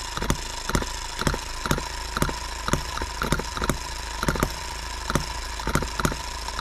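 H73 model engine running, chugging along with sharp firing strokes at an uneven beat of about two a second over a steady whine.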